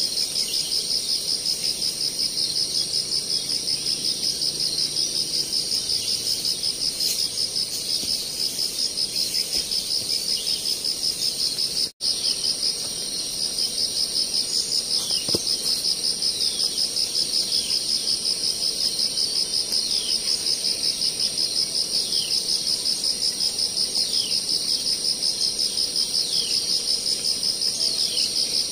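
Loud, steady insect chorus: a high, rapidly pulsing buzz with a second, higher band above it. It drops out for an instant about twelve seconds in. Later, faint short falling chirps repeat every second or two, and a single knock sounds about fifteen seconds in.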